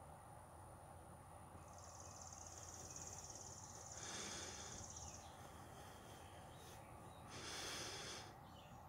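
Faint outdoor ambience: a high, steady insect-like buzz lasting about three seconds, and two soft hissing swells about a second long, one about halfway through and one near the end.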